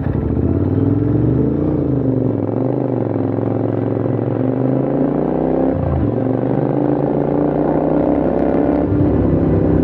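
Royal Enfield Interceptor 650's parallel-twin engine pulling uphill under way. The revs waver with the throttle, then climb steadily and drop sharply twice, about six seconds in and near the end, as it shifts up a gear.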